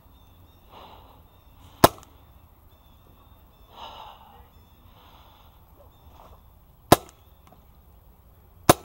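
Paintball markers firing: three single sharp pops, one about two seconds in, one about seven seconds in and one near the end.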